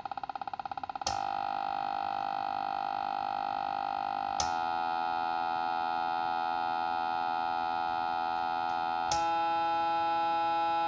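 Old Ludlum Model 12 radiation survey meter's speaker giving out odd electronic tones in place of counting clicks: a fast pulsing buzz that gives way, with a click about a second in, to a steady tone full of overtones. The tone jumps to a different pitch with a click twice more, at about four and a half seconds and near the end.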